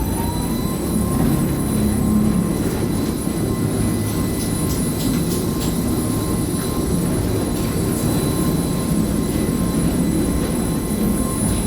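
Steady low mechanical rumble with a thin, steady whine above it, from a running motor.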